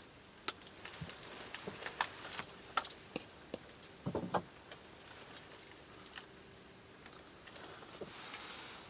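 Scattered light clicks and knocks, with a small cluster about four seconds in, over a faint steady hum.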